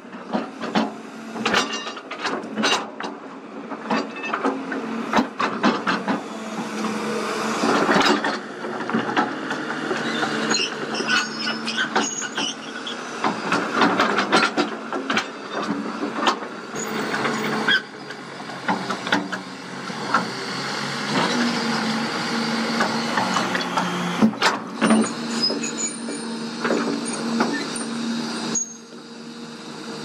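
Kobelco SK200 excavator at work: its diesel engine running steadily with hydraulic hiss, while the steel bucket scrapes and knocks through rock and dirt, giving many sharp clatters of stones.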